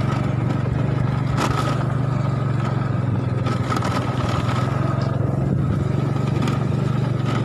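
Small motorcycle engine running steadily while riding, a low even drone.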